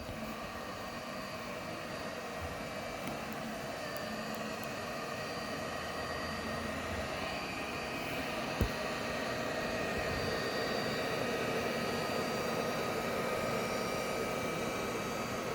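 iLife robot floor cleaner running: a steady motor whir with a few faint held tones, growing slightly louder, with a single sharp click a little past halfway.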